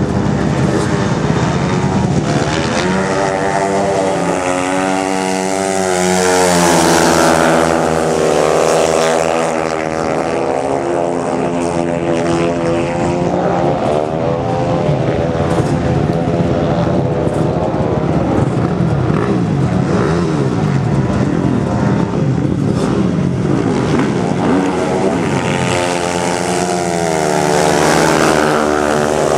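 Two 350cc speedway motorcycles racing, their single-cylinder engines revving up and down in pitch through the laps. They are loudest twice, as the bikes pass closest: about a quarter of the way in and again near the end.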